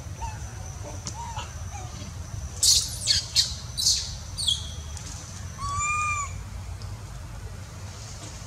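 Young long-tailed macaques crying: a quick run of four or five short, shrill screams about three seconds in, then one drawn-out arched call that rises and falls in pitch.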